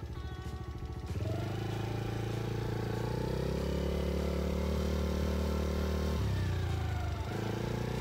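Small off-road vehicle engine running while driving across a field. It speeds up about a second in, holds a steady pitch, eases off around six seconds in and picks up again near the end.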